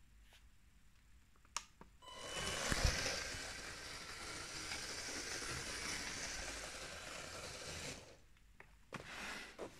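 LEGO train running on plastic track, its motor and wheels making a steady whirring hiss that starts about two seconds in and stops suddenly near the end. A couple of clicks come just before it starts.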